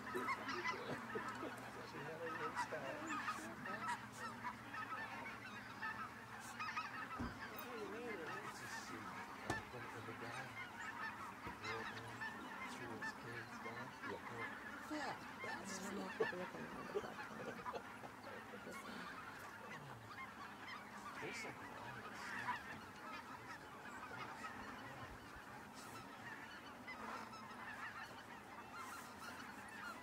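A large flock of snow geese calling together: a dense, continuous din of many overlapping honks.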